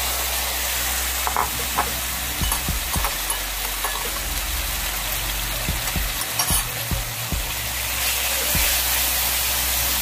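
Marinated beef slices sizzling in hot oil in a nonstick frying pan with garlic as a wooden spatula stirs them, with scattered short knocks of the spatula against the pan. The sizzle grows a little louder about eight seconds in.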